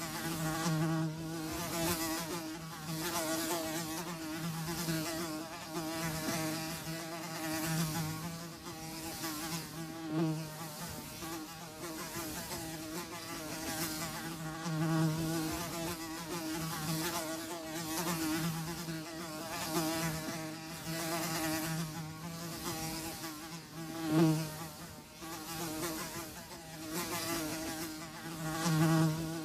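Flies buzzing continuously, the pitch wavering and the buzz swelling and fading every second or two as they fly close by and away, with one louder close pass near the end.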